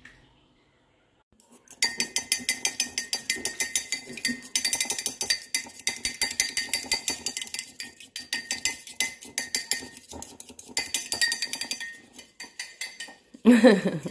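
A metal fork beating a raw egg in a ceramic mug: rapid, rhythmic clinking against the mug's sides, about four or five strokes a second, starting about two seconds in, with short pauses. A brief loud voice sounds near the end.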